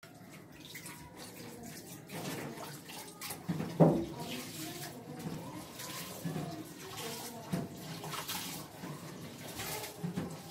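Water splashing irregularly, with a sharp knock about four seconds in.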